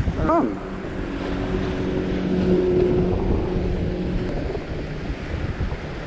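Wind buffeting the microphone over surf and rushing water, with a steady low engine drone for the first few seconds that fades out. A short rising-and-falling voice-like sound comes just after the start.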